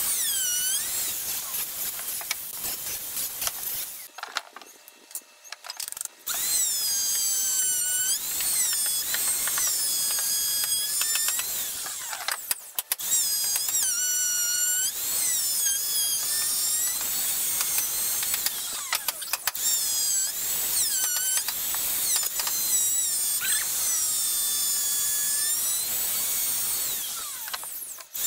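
Handheld electric router running at high speed, its whine dipping in pitch and recovering again and again as the bit bites into the wood while cutting an edge profile. The sound drops away briefly a few times, the longest break about four seconds in.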